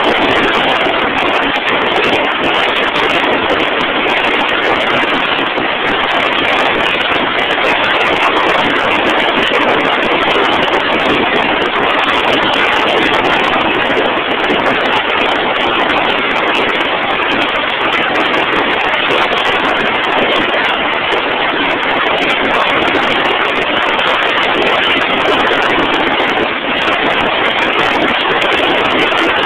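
Heavy machinery running steadily: a loud, even rushing noise with no distinct knocks or changes.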